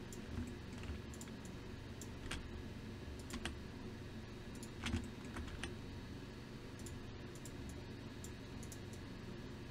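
Computer keyboard and mouse clicks, irregular and scattered, the loudest about five seconds in, over a steady low hum.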